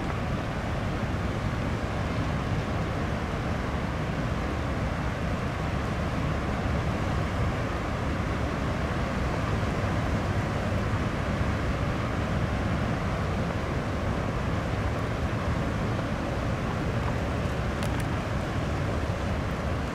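Steady low rumble of the large cruise ship Mein Schiff 1 sailing past, mixed with wind on the microphone.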